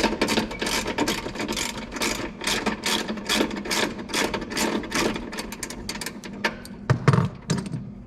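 Ratchet wrench clicking rapidly and evenly, about five clicks a second, while a nut at the truck battery is worked loose. The clicking stops about six and a half seconds in, and a low knock follows.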